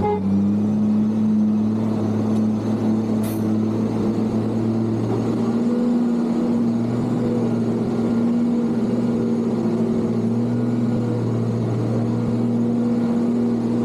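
Case motor grader's diesel engine running steadily, its pitch rising slightly about five seconds in.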